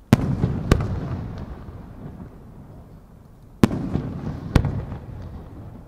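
Japanese aerial firework shells going off: four sharp booms, two close together near the start and two more about three and a half seconds in, each trailing off in a low rolling rumble.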